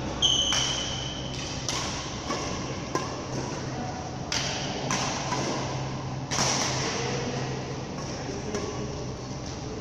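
Badminton rackets striking shuttlecocks on several courts at once: sharp, irregular hits, roughly one or two a second, the loudest about a third of a second in and just after six seconds. Near the start a high squeak lasts about a second, and a steady low hum of hall ventilation runs underneath.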